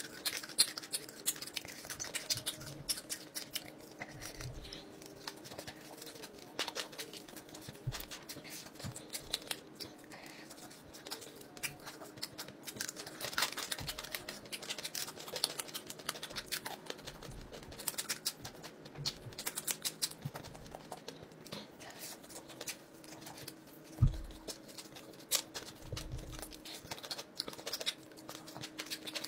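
Close-up eating sounds: a steady run of small crackles and clicks from chewing crisp fried fish and fingers picking at the fish, with a few sharper knocks.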